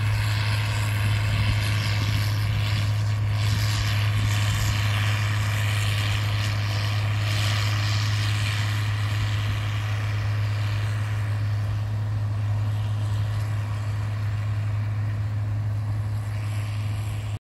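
John Deere tractor's engine running steadily under load as it pulls a corn planter across the field: a constant low drone with an even hiss over it.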